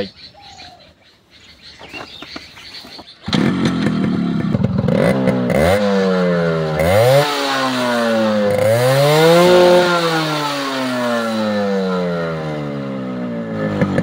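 Yamaha RX 100 two-stroke single-cylinder motorcycle engine firing up about three seconds in, then revved up and down several times, the biggest rev near the middle, before settling back toward idle. It breathes through its original stock silencer, and the sound is called fully original and fresh.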